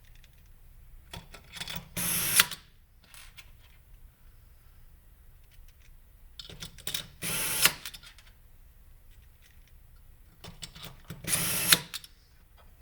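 Power screwdriver driving screws into a block, in three short runs with the middle one the longest, with small clicks of handling between them.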